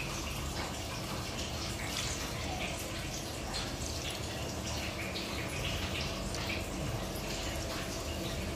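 Wet cheese curd and whey being handled: irregular splashing, squelching and dripping as curd is scooped out of whey and pressed into a nylon stocking, over a faint steady hum.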